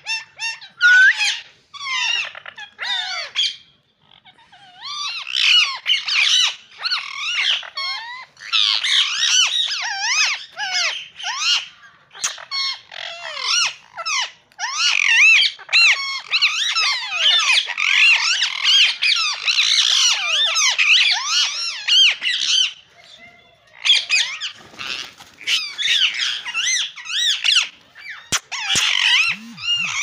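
Rose-ringed parakeets (ringnecks) chattering, a dense run of rapid, squeaky high chirps that slide up and down in pitch. The calls come in short bursts at first, then run almost unbroken, with brief pauses.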